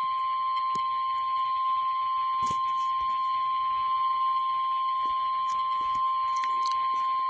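Emergency alert attention tone: a single steady, unbroken tone just above 1 kHz, the warning alarm tone of a National Weather Service weather-radio alert, signalling that a severe thunderstorm warning follows. Faint hiss and scattered clicks sit underneath.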